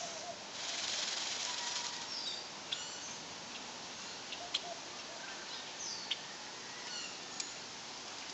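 Small birds chirping now and then in short, high calls, with a rustling hiss lasting about two seconds near the start and a few sharp clicks.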